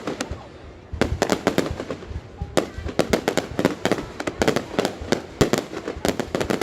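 Fireworks display: rapid volleys of sharp bangs and cracks coming in quick succession, with a brief lull just before the first second, then continuous salvos.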